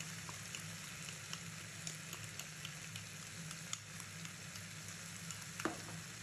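Onions and green capsicum frying in a nonstick pan as a flour-and-water slurry is poured in: a steady sizzle with scattered small crackles. One brief knock near the end.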